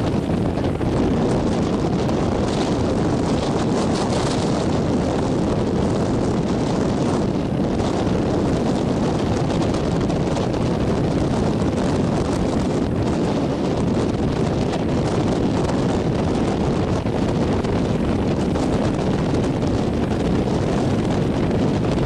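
Steady wind buffeting the microphone over the continuous rush of rough, breaking surf.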